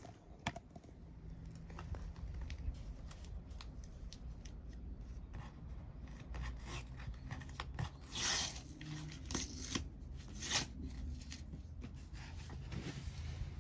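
A cardboard parcel being cut and torn open by hand: scissors snipping, small clicks and rustling, and a few short, loud tearing rips a little past the middle.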